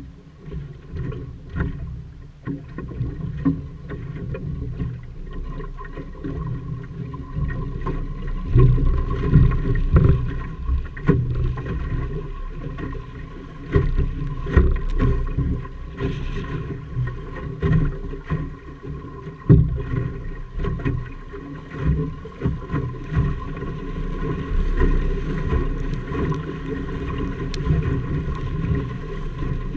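Water splashing and slapping against the hull of a small wooden Optimist sailing dinghy under way, with wind buffeting the microphone. Irregular knocks and thumps come through the hull, busier in the second part.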